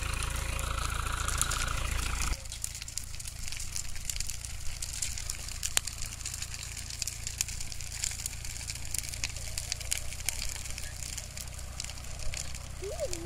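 New Holland 82-86 tractor's diesel engine running close, then about two seconds in it drops abruptly to a quieter, steady running sound heard from farther off, with scattered sharp crackles.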